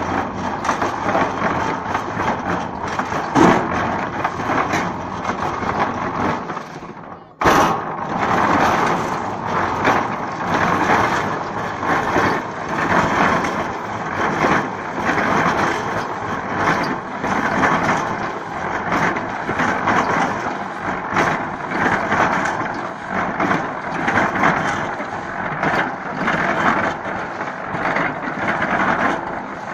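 Reversible drum concrete mixer running and discharging, its turning drum churning wet concrete and aggregate out into a trolley with a steady, gritty rattle. Around seven seconds in the sound drops away for a moment and then cuts back in suddenly.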